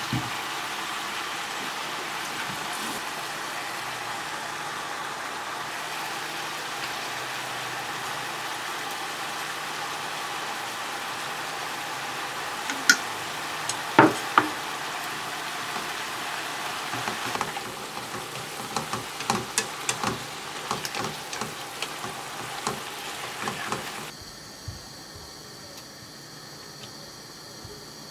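Food sizzling in a frying pan, with a utensil clicking and scraping against the pan several times in the second half. The sizzle gives way to a quieter steady hiss near the end.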